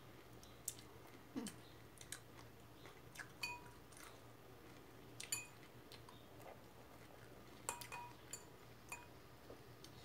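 A person chewing a mouthful of salad, with a metal fork clicking and scraping against a ceramic bowl about a dozen times; several of the fork strikes leave the bowl ringing briefly.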